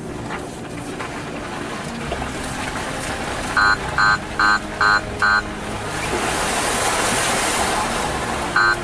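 Jeep Liberty (KJ) 4x4 driving on an off-road track: a steady low rumble of engine and tyre noise, with a broad rush of noise that swells and fades between about six and eight seconds in. A run of five short electronic beeps, about two and a half a second, comes about three and a half seconds in, and another run starts at the very end.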